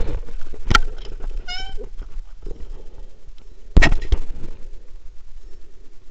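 Mountain bike rolling down a loose gravel track: a steady rumble of tyres on stones, broken by sharp knocks and rattles of the bike over bumps, the loudest just under four seconds in. A brief high squeal comes about a second and a half in.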